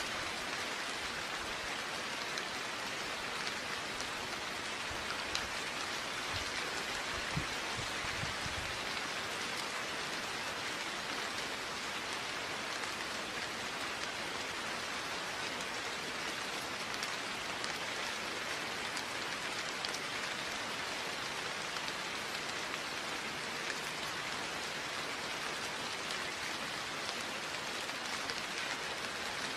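Steady rain falling: a dense, even hiss of drops with scattered distinct drips. It has no thunder. A few soft low thuds come in the first several seconds.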